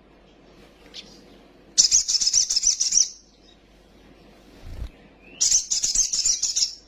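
Male sogon sunbird singing a high, fast twittering phrase twice, each burst over a second long, about two seconds in and again near the end, with a single faint chirp just before the first.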